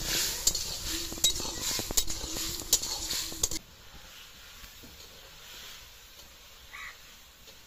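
Metal spatula stirring and scraping fish curry in a black iron kadai, sharp clinks over a loud sizzle of frying. About three and a half seconds in the sound drops suddenly to a faint low hiss.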